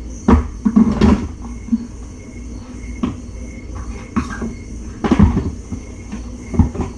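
Irregular knocks, clunks and rustles of a person handling things, in a cluster about a second in and then every second or two, over a steady background hum.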